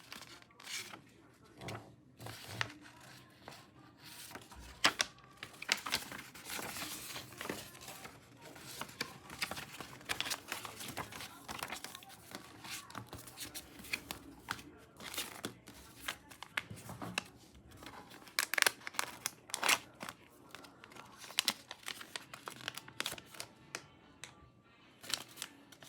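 Album packaging being torn open and crinkled by hand: irregular rips and crackles throughout.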